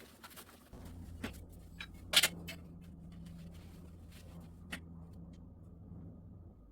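A steady low machine hum switches on about a second in and keeps running, with a few sharp knocks and clicks over it, the loudest about two seconds in.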